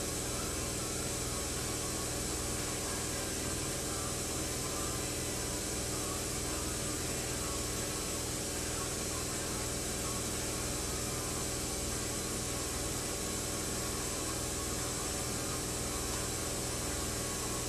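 Bench combination belt and disc sander running steadily: an even motor hum under a continuous rush of noise that does not change.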